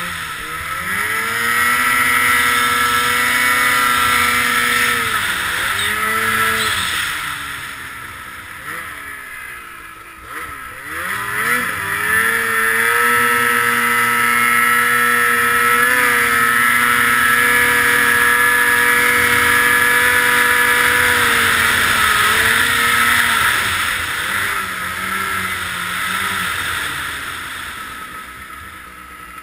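Ski-Doo 800R snowmobile's two-stroke twin engine running under throttle through deep snow. The revs dip and pick up a few times, drop away about ten seconds in, then climb and hold high for around ten seconds before easing off near the end.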